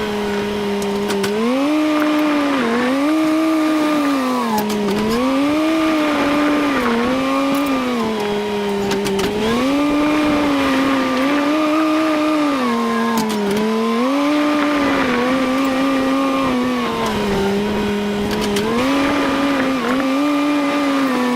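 An engine running under changing load. Its pitch rises and falls every second or two as it repeatedly speeds up and slows down.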